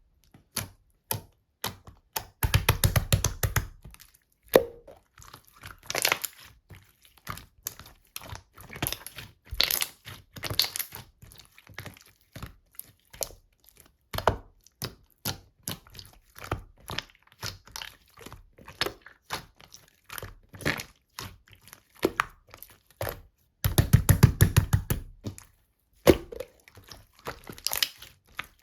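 Slime being squeezed and poked by hand, making many small wet clicks and pops. Two stretches of rapid popping come about two seconds in and again near the end.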